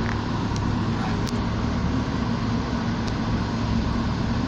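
Steady engine hum and road noise heard from inside a moving car, with an even low drone throughout.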